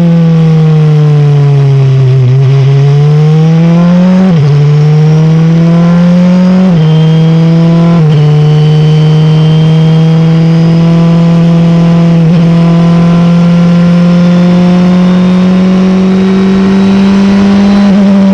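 Onboard engine of a Wolf sports-prototype race car under hard acceleration. The pitch sinks for about two seconds through a slow corner, then climbs with three quick upshifts a couple of seconds apart, and rises slowly through a long pull in fifth gear, dipping slightly near the end.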